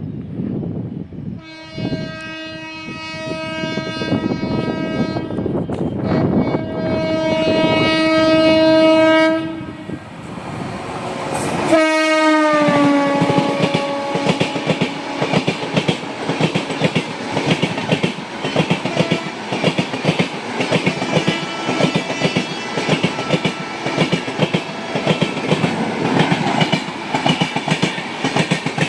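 Indian Railways express train, hauled by a diesel locomotive, passing at speed. The horn sounds in two long blasts, then a third whose pitch falls sharply as the locomotive goes by, followed by the rapid clickety-clack of the coaches' wheels over the rail joints.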